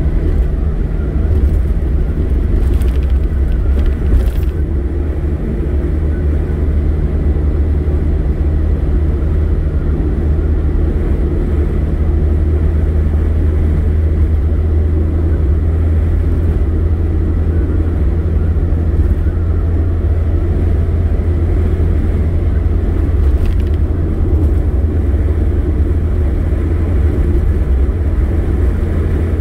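Car engine and road noise heard from inside the cab while driving at a steady cruise: a constant low rumble with no rise or fall in speed.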